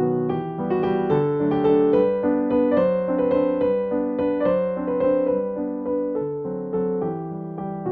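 Background music: a gentle piano tune playing a steady run of notes.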